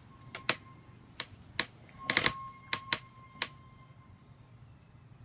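A dozen or so sharp clicks at uneven intervals, bunched together about two seconds in, with a faint ringing tone hanging briefly after several of them.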